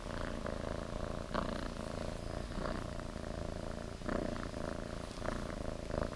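Tabby kitten purring steadily while being stroked, with louder swells every second or so.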